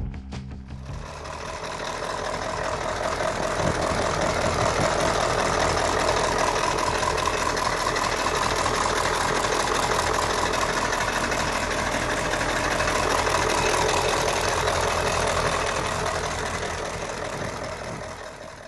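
A large engine running steadily, fading in over the first couple of seconds and fading out near the end.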